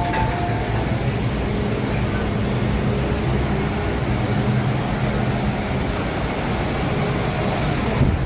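MTR M-Train (first-generation 1979 Metro-Cammell stock) running, a steady rumble with a low hum from the traction equipment.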